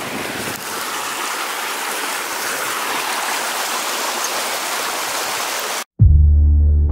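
Steady rushing of a lake outlet stream running over rocks. It cuts off abruptly just before the end, and background music with deep bass notes starts.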